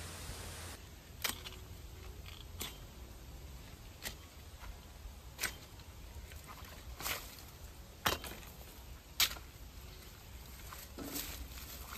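Taro stalks being cut or snapped off: a string of about eight sharp snaps, irregular, roughly one every second or so.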